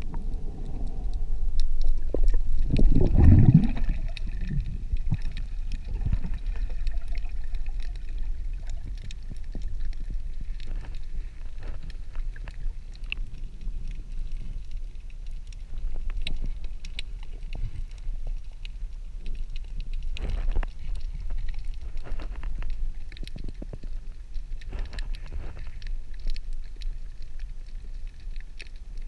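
Underwater sound picked up by a camera in a waterproof housing: a steady low rumble of moving water, with a louder gurgling rush of water and bubbles about two to four seconds in, then scattered faint clicks and knocks.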